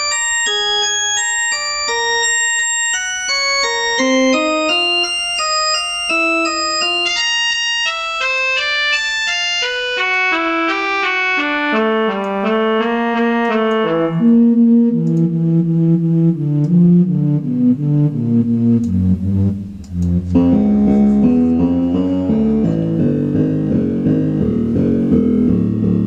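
Computer-generated General MIDI melody, short separate notes about three a second, each note one day's UV-B reading mapped to pitch. The line steps gradually lower as the UV-B falls. The instrument voice is switched partway through, from church organ to flute to an 'Atmosphere' synth pad, with a brief dip in level near the last change.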